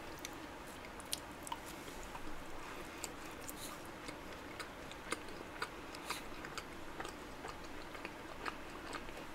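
Quiet, close-miked chewing of a caramel-filled macaron, with scattered soft mouth clicks and smacks at an irregular pace.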